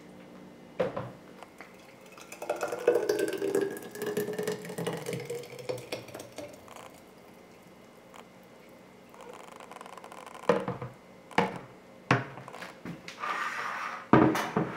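A thick blended smoothie glugs from a blender jug into a glass mason jar, with a tone that rises in pitch as the jar fills. Near the end come a few sharp knocks of the jug against the jar.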